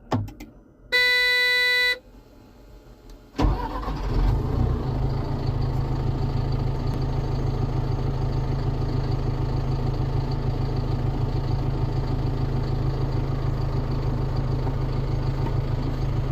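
John Deere 320 skid steer being started: a steady warning beep lasts about a second, then a short pause, then the diesel engine catches about three seconds in and settles into a steady idle.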